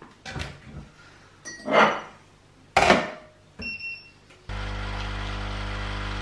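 A few clinks and knocks of kitchenware, then an electronic beep, after which a kitchen appliance starts up with a loud, steady electric hum.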